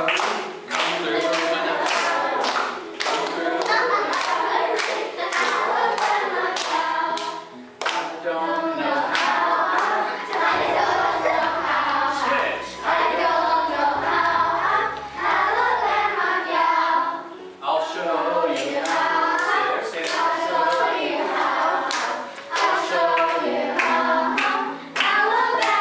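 A group of children singing a hand-clapping game song together, with sharp rhythmic hand claps between and under the voices.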